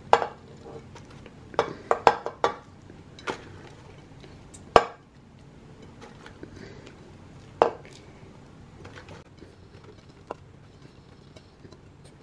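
Sliced star fruit tipped and dropped by hand from a bowl into a metal cooking pot, with irregular knocks and clinks against the pot: a quick cluster around two seconds in, the loudest near five seconds, and another near eight seconds.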